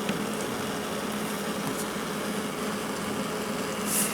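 A steady mechanical hum with a low, even tone, and a short hiss near the end.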